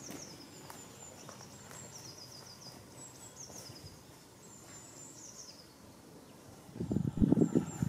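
A songbird singing high, quick chirps that slide downward, in several repeated phrases, over quiet outdoor ambience. Near the end, loud close footsteps start and drown it out.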